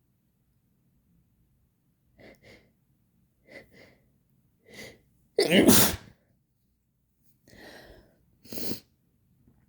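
A person's sneeze into toilet paper: a few short catching breaths build up, then one loud sneeze about five and a half seconds in. A breath in and a shorter burst follow near the end.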